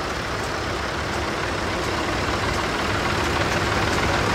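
Engines of several vintage Fordson and Ford tractors running at low speed as they drive past in a slow procession, growing louder as one comes near.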